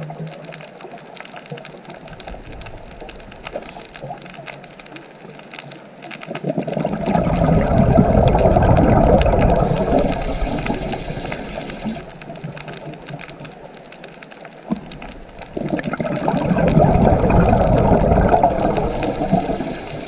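Underwater water noise: a soft, steady rushing wash that twice swells into a loud, low gushing and bubbling for about four to five seconds each time, then dies back.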